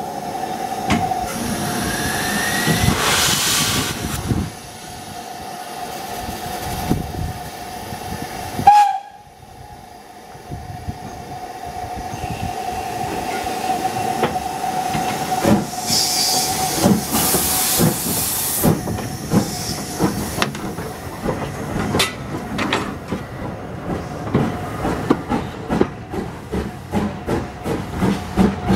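Steam locomotive at a standstill, hissing with a steady held tone and a sharp loud burst about nine seconds in, then blowing off steam and starting away: its exhaust beats begin near the end and come faster as it gets moving.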